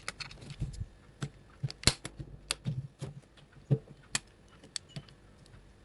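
Plastic back housing of a smartphone clicking and snapping as it is pried open along its edge: a run of irregular sharp clicks, the loudest about two seconds in.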